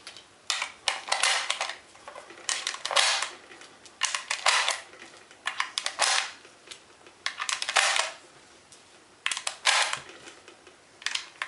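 Rifle cartridges pushed one at a time by hand into a 30-round AK-47 magazine: a short metallic click and scrape about every second and a half, as each round goes in.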